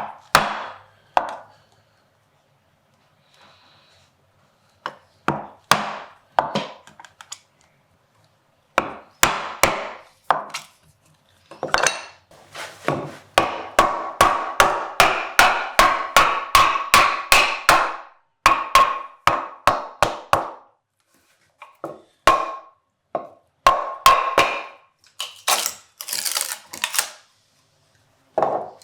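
Metal vise hardware being handled and fitted together: a string of sharp clicks, clinks and knocks with short ringing tails. A faster run of ringing metallic taps comes in the middle and another cluster near the end.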